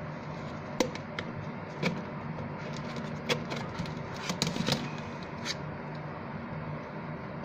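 Packaging and a plastic device casing being handled: a box slid open and the hard plastic case picked up and turned, giving a scattering of sharp clicks and taps over a steady low hum.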